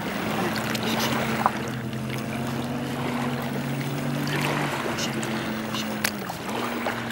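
Motorboat engine droning steadily on the lake, its pitch dipping briefly and recovering near the end, over water sloshing and splashing around a swimming dog.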